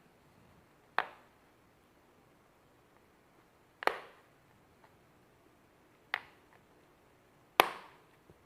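Four sharp plastic clicks a couple of seconds apart: the snap-fit clips of a Lenovo IdeaPad 100 laptop's plastic case popping loose as it is pried open with a card.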